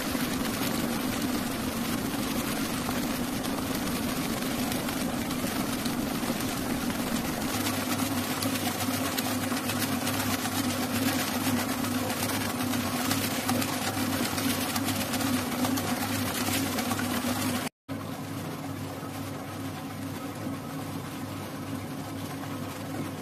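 Commercial planetary stand mixer running steadily, its motor humming as the beater turns in the steel bowl behind the wire guard. The sound cuts out for an instant near the end, then a quieter steady hum carries on.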